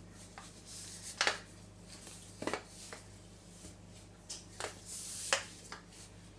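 Nylon knee-high stocking rustling and rubbing as it is stretched over a wooden rolling pin by hand, with a few light knocks scattered through.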